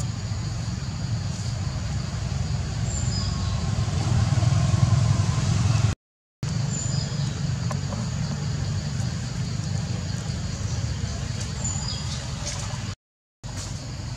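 Steady low outdoor rumble with a few faint, short high chirps, broken twice by a brief dropout to silence.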